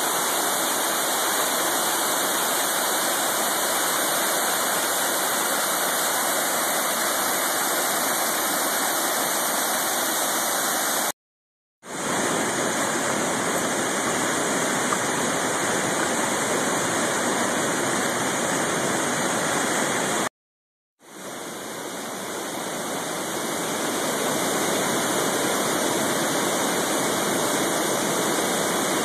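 Waterfall pouring: a steady rushing of falling water that cuts out twice for under a second, about a third and two thirds of the way through, and after the second gap fades back up over a few seconds.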